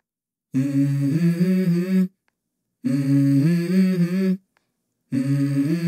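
Opening of a backing song: a hummed vocal melody in three short phrases, each stepping between a few low notes, with brief silences between them.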